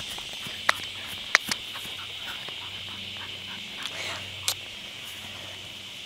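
Steady high-pitched outdoor chorus of small animals, with a few sharp clicks: three in the first second and a half and one more about four and a half seconds in.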